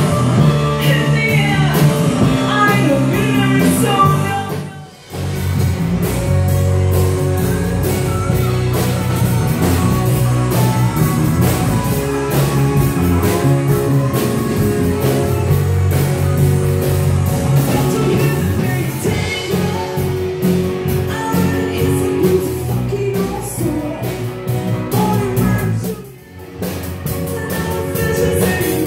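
Rock band playing loud and full, with electric guitar, electric bass, drum kit and a singer's voice through a microphone. The sound dips briefly about five seconds in and again near the end.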